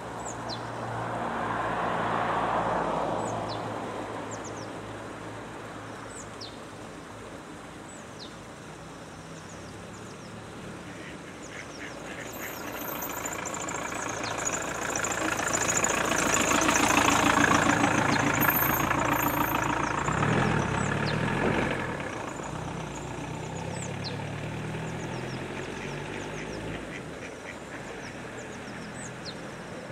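Mallard ducks quacking on a pond, under the noise of a passing vehicle that swells and fades twice: briefly near the start, and louder and longer through the middle. Faint, short, high bird chirps come and go.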